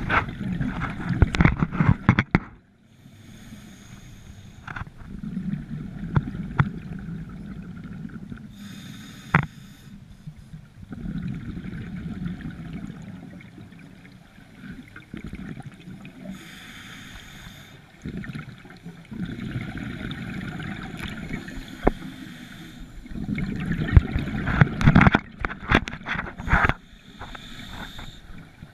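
Scuba regulator breathing, heard underwater: short hissing inhalations through the demand valve alternate with gurgling bursts of exhaled bubbles, in a slow breathing cycle. The bubble bursts are loudest at the start and again about three-quarters of the way through.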